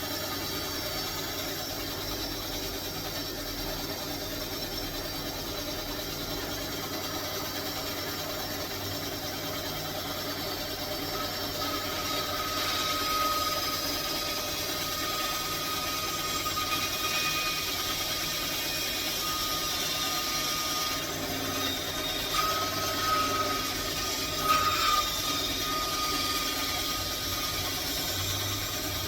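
A power tool running steadily in a workshop. Partway through, a thin high whine joins the noise and wavers a little near the end.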